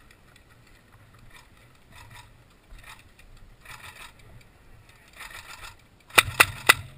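Quiet rustling and shuffling of kit and steps, then three sharp airsoft rifle shots in quick succession near the end.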